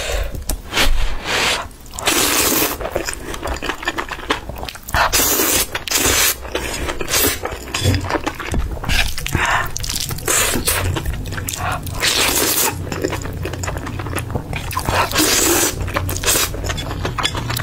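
Close-miked slurping and chewing of saucy noodles: several long, wet slurps a few seconds apart, with chewing and mouth sounds in between.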